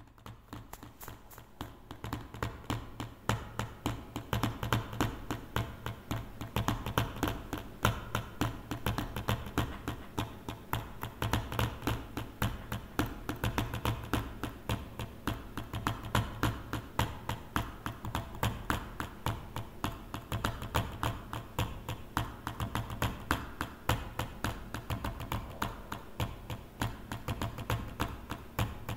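A steady run of footstep-like taps, a few each second, over a low steady rumble.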